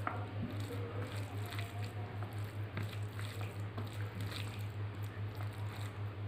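Bare fingers squishing and mixing rice with dal and mashed egg on a steel plate: soft wet squelches with small clicks, over a steady low hum.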